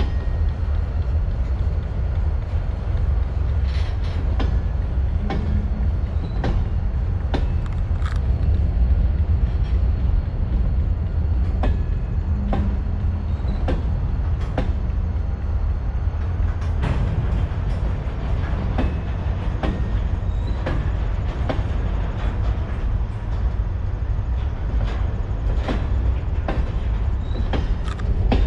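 Freight train rolling past: a steady low rumble with irregular sharp clicks of steel wheels over the rail joints.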